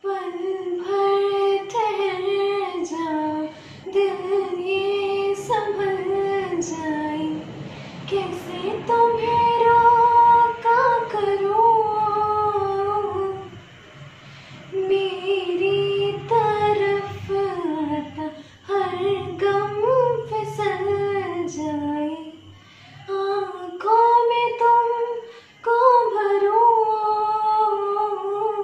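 A young woman singing solo, in long held phrases with short pauses for breath between them.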